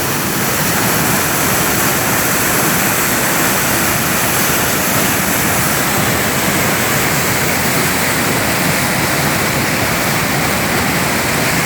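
Waterfall pouring steadily, a loud even rush of falling water.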